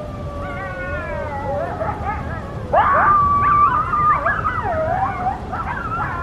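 A pack of coyotes howling and yipping together, many wavering pitches overlapping, with a sharp jump in loudness and quick rising yips about three seconds in.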